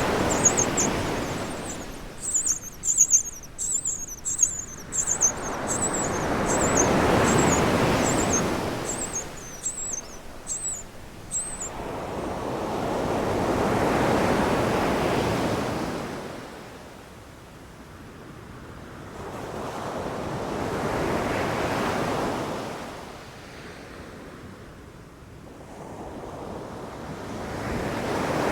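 Ocean waves washing in and drawing back, swelling about every seven seconds. Through the first part a bird chirps in a quick, high run of short notes, stopping about eleven seconds in.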